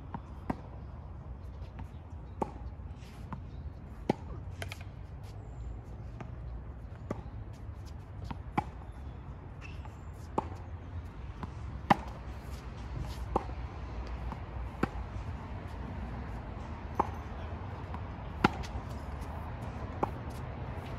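Tennis balls struck by rackets and bouncing on a hard court during a rally: sharp pops roughly every one and a half to two seconds, some louder than others, over a steady low rumble.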